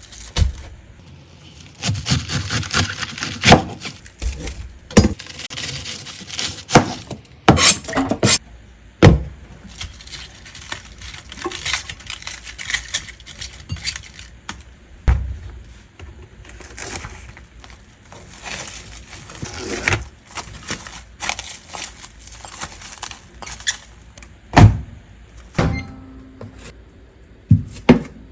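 Kitchen food-preparation sounds: a string of knocks and clatter, with several louder knocks and stretches of hissing noise in between.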